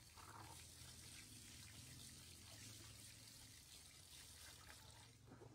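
Tap water running steadily and faintly into a bathtub.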